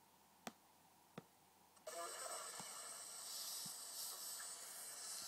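Two small clicks as a voice recorder is switched on, then about two seconds in a steady hiss of playback starts, with a couple of faint knocks in it.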